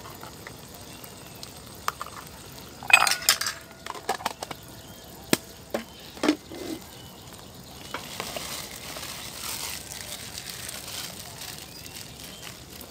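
A spoon clinking and scraping against cookware several times about three to five seconds in, with a short metallic ring, and a dull knock near the middle. Later a soft sizzle rises and fades as the tamarind sauce cooks in the pan.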